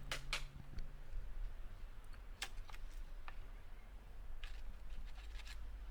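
Faint, scattered light clicks and taps, irregularly spaced, over a low steady hum.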